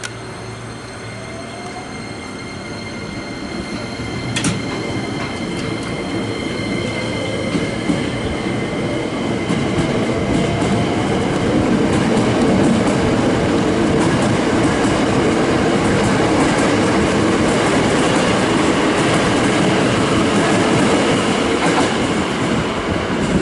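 Hankyu Railway electric train running along the platform. Its noise builds over about ten seconds with a faint rising motor whine, then stays loud with wheels clattering over the rails.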